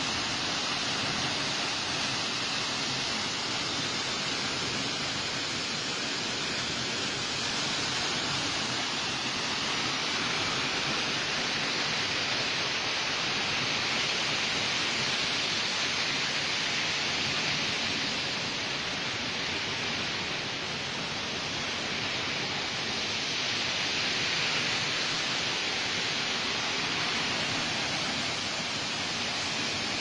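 A tall, narrow waterfall plunging into a pool: a steady rush of falling water.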